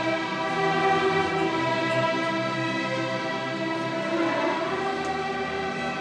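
A large string orchestra of violins, violas, cellos and basses playing held, sustained chords.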